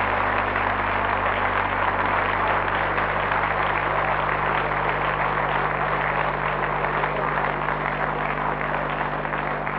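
Ringside crowd applauding steadily, with a low steady hum underneath.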